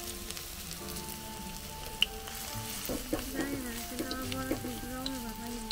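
Cauliflower-leaf fritters (bora) sizzling as they fry in a little oil in a blackened wok, with a few small clicks as fresh batter goes into the pan.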